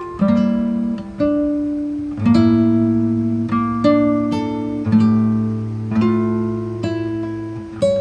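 Background music: acoustic guitar picking single notes and chords, each starting sharply and dying away.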